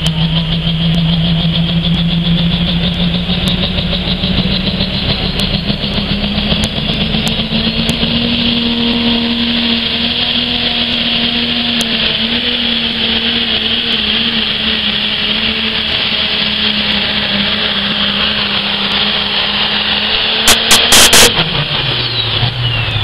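Diesel pulling tractor at full throttle dragging the sled, its engine note climbing slowly and then holding steady. About 20 seconds in come a few loud cracks, then the engine note drops sharply as the throttle comes off at the end of the pull.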